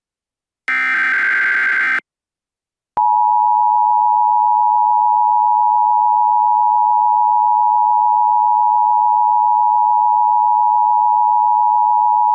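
Emergency Alert System tones: a last burst of the digital SAME header data, about a second long and ending about two seconds in, then a brief gap, then the steady two-tone EAS attention signal starting about three seconds in and held on.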